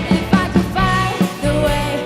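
Rock band playing live: a sung melody over electric guitar, bass and drums.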